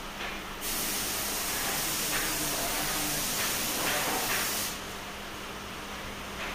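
Compressed air hissing steadily in a furniture workshop. It starts about half a second in and cuts off abruptly about four seconds later, over a faint steady hum.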